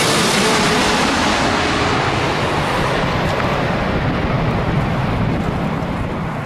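Jet aircraft engine roar, a deep rumble with hiss, losing its high end in the second half as it recedes and fading out near the end.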